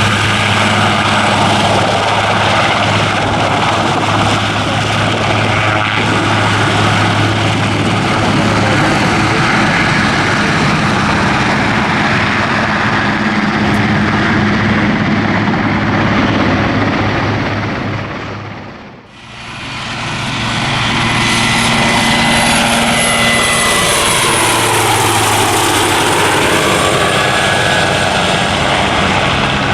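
Aircraft engine running loudly and steadily with a low hum. The sound drops away sharply about nineteen seconds in, then comes back with a sweeping rise and fall in pitch.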